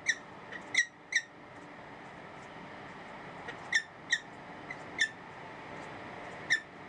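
Peregrine falcon giving short, sharp, high-pitched calls, about seven of them, several in quick pairs, over a steady background hiss.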